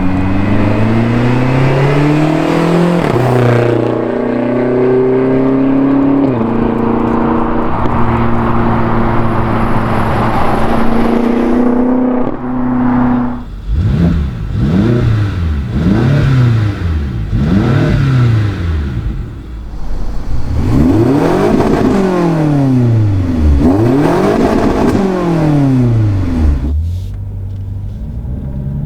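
BMW X5M/X6M S63 4.4-litre twin-turbo V8 through a Dinan exhaust, running at steady revs with a couple of pitch steps for the first half, then revved hard over and over in a series of quick rises and falls before settling back near the end.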